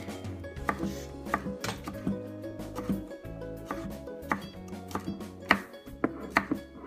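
Chef's knife chopping scallions on a wooden cutting board: sharp, unevenly spaced knocks of the blade on the board, roughly one to two a second, over quiet background music.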